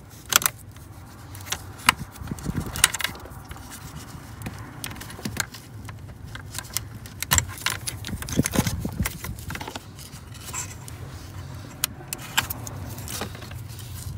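Plastic wiring connectors on a Silverado's HMI module being worked loose and unplugged by hand: irregular sharp clicks and rattles of plastic, loudest in the first few seconds and bunched again about halfway through.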